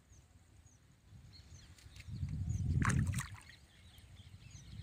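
A hooked rohu thrashing at the water surface, one splash a little before three seconds in, over faint bird chirps.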